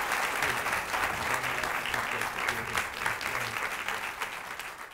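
Audience applauding, a dense steady clapping that starts to die down near the end.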